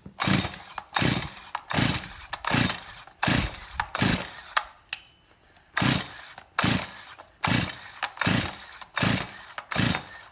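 Stihl MS261 C two-stroke chainsaw being pull-started over and over, about one pull every 0.8 s, in two runs of roughly six pulls with a short pause between them. The engine turns over on each pull of the recoil starter but never fires. The decompression valve is open and the choke is on the start position: the saw is not even trying to start.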